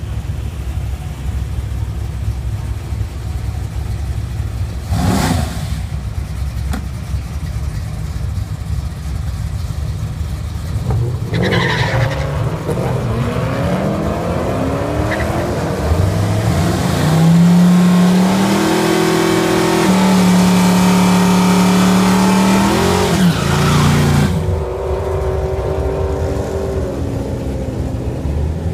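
Two drag-racing cars idling with a deep rumble and blipping the throttle at the line. About twelve seconds in they launch, and the engines climb in pitch as they accelerate hard. The sound is loudest a few seconds later and then fades as the cars run away down the strip.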